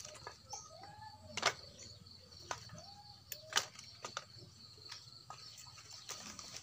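Dry twigs and a plastic sack being handled on the ground by hand, giving several sharp snaps and crackles, the loudest about a second and a half and three and a half seconds in. Under them run a steady high insect drone and a bird's short arching calls about every two seconds.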